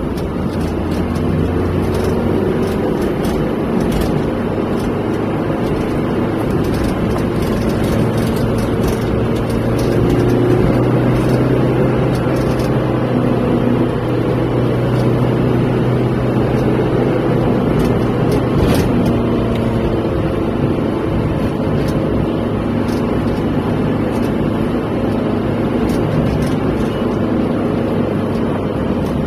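Engine and road noise of a vehicle driving, heard from inside its cabin: a steady hum, a little louder around ten seconds in.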